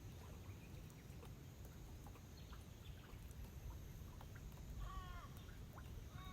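Two short animal calls, each bending down in pitch at the end, about five and six seconds in. Beneath them is faint outdoor ambience: a low rumble and scattered small bird chirps.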